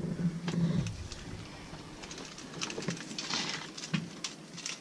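Scattered light clicks, taps and rustling of hands and a tool working on the floor of a boat, while a low hum cuts off about a second in.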